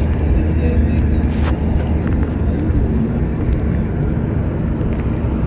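Steady low rumble of a moving road vehicle heard from inside the cabin: engine and tyre noise on the road.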